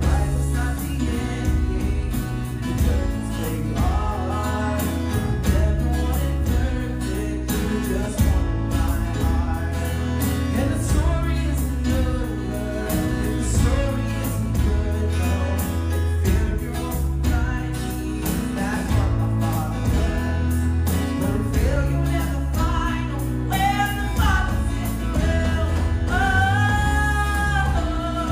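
Worship song: singing over guitar with a steady beat and a strong bass line.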